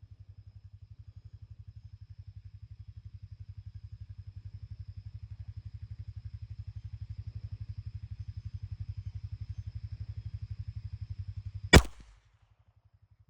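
A steady low rhythmic rumble, slowly growing louder. Near the end a single sharp shot from a Colt Woodsman .22 pistol cuts in, and the rumble drops away after it.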